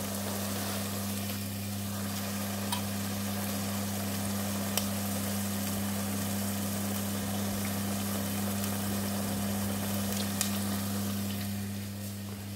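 Tomato and herb sauce sizzling in a stainless steel pot on a gas burner, over a steady low hum, with a few faint clicks; the sizzling dies down a little near the end.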